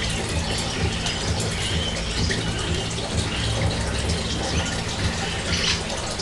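Amazon parrot's claws and beak clicking and rattling on the wire bars of its cage as it climbs about, over a steady background rush with a low hum.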